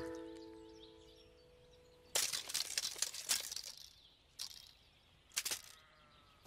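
A ringing musical note fades out, then a steel tape measure is pulled out with a short rasping run about two seconds in, followed by two brief clicks.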